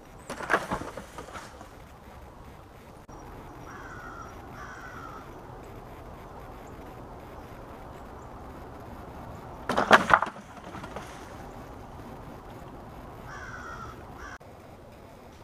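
A homemade squirrel catapult fires: its launch arm snaps up and bangs loudly against its stop about ten seconds in. There is a shorter clatter just after the start. A few short bird calls come in between.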